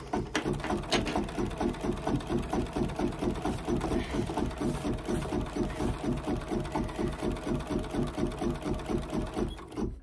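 Bernina 790 Plus embroidery machine stitching out an appliqué bird, running at an even, rapid stitch rhythm. It stops abruptly just before the end.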